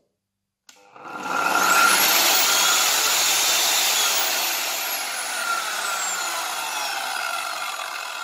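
Hychika CS-190C corded circular saw switched on with no load about a second in. Its soft start brings the motor and blade up to speed gently over about a second, with a rising whine. The whine then slowly falls and the sound eases off as the blade runs down.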